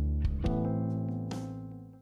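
Instrumental outro music that fades out steadily over the second half and ends.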